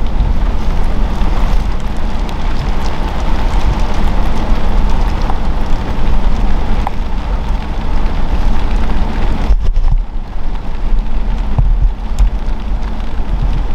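Steady loud rushing of wind and rain, with a deep rumble of wind buffeting the microphone. The hiss thins out briefly about ten seconds in.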